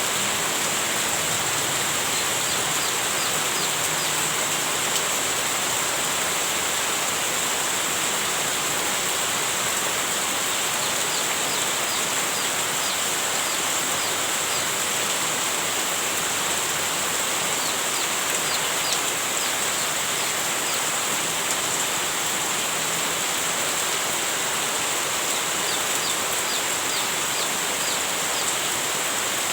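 Heavy rain falling, a steady, unbroken hiss. Four times, a short cluster of faint high chirps rises above it.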